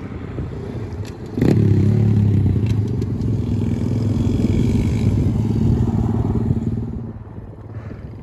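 Small pit bike engine running steadily, coming in loud suddenly about a second and a half in and fading away near the end.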